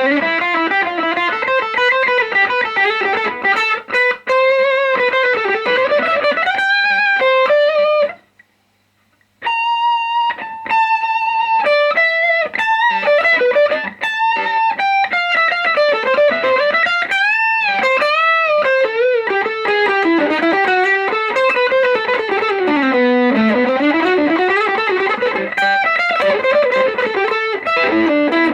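Les Paul electric guitar played through a CE Pedals FET Dream pedal: a single-note lead melody with string bends and vibrato. The playing stops for about a second roughly eight seconds in, then carries on.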